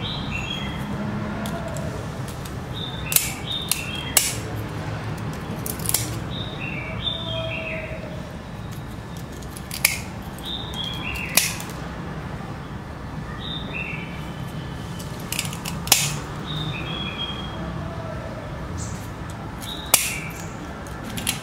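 Pliers cracking small chips off the lip of a spiral seashell: about eight sharp snaps a few seconds apart. Birds chirp over and over in the background, with short falling calls, over a steady low hum.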